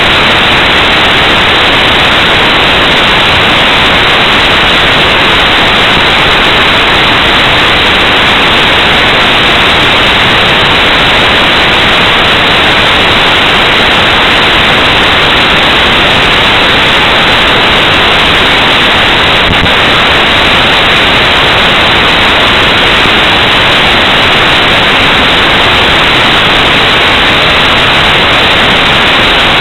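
Loud, steady electronic hiss of recorder static, drowning out any sound of the room.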